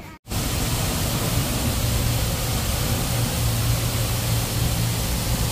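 Jet fountain spraying into a pond: a steady rushing hiss of falling water, with a low steady hum underneath. It starts abruptly just after a moment's silence.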